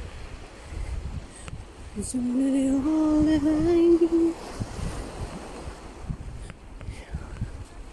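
Wind rumbling on the microphone over waves washing onto a sandy, stony shore. About two seconds in, a long held tone with a slight upward rise sounds for about two seconds.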